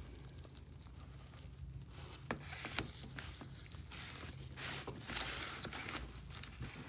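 A gloved hand digging and rustling through worm-bin bedding of castings and shredded paper and cardboard in a plastic tub, with soft rubbing and scraping. It is faint for the first two seconds, then comes in irregular rustling bursts with a few sharp clicks.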